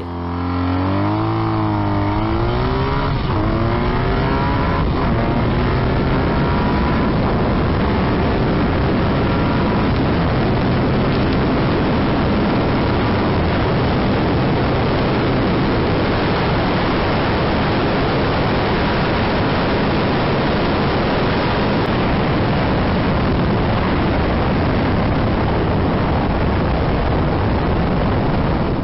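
BMW R nineT Racer's 1170 cc air/oil-cooled boxer twin accelerating hard through the gears, heard from onboard, its pitch climbing and dropping back at each shift. After the first few seconds it is buried under a steady rush of wind and engine noise at high speed.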